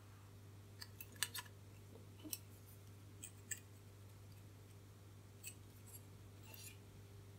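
Faint scattered clicks and ticks of a resistor's wire leads being pushed through the holes of a circuit board and the board being handled, over a low steady hum.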